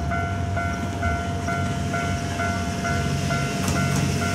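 Japanese level-crossing warning bell ringing steadily, about two dings a second. From about three and a half seconds in, the low engine rumble of the approaching JR West Series 87 diesel-electric railcar (Twilight Express Mizukaze) grows louder beneath it.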